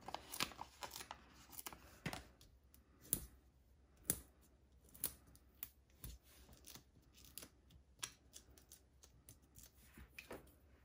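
Faint paper-craft handling: a brief rustle of a die-cut foam adhesive sheet and cardstock, then sparse light clicks and taps about once a second as a small paper piece is pressed onto a card.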